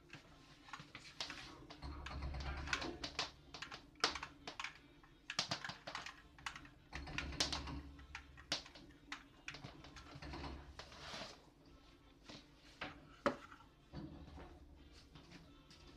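JCB backhoe loader breaking down a brick wall: irregular cracks and the clatter of bricks and rubble falling, over the low hum of its diesel engine, which swells under load several times.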